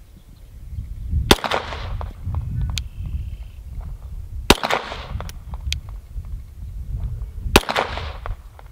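Three slow, evenly spaced shots from a 9mm Glock 34 pistol, about three seconds apart, each with a short echo trailing off. A low rumble runs between the shots.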